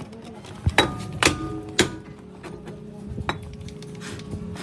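Sharp metal-on-metal clanks of a hammer or hand tools against car suspension parts. They come as several irregular strikes, the loudest in the first two seconds and one more about three seconds in, and some leave a brief metallic ring.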